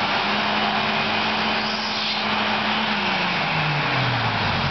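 Suzuki Vitara 4x4's engine working under load as it climbs a steep dirt mound: the revs rise right at the start, hold steady, then fall away about three seconds in.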